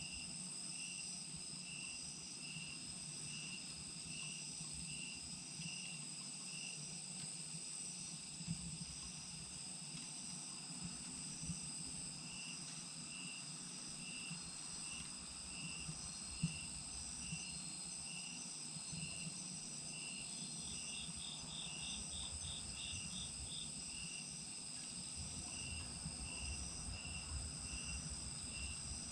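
Crickets and other insects calling steadily, one chirping a little more than once a second with a pause in the middle, and a brief fast trill about two-thirds of the way through. Under them a wood fire in a chiminea crackles faintly, with a few sharp pops, the loudest a little past halfway.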